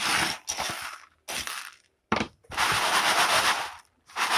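Freshly roasted coffee beans rattling and scraping as they are stirred and spread across a tray to cool, in several bursts with short pauses between, the longest in the second half.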